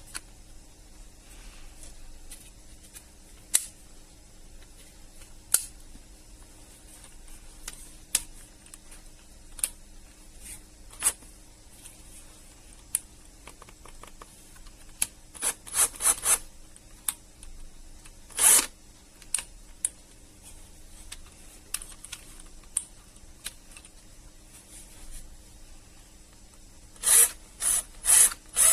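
Handling noise: scattered clicks and short scraping strokes, with a quick run of five scrapes near the end.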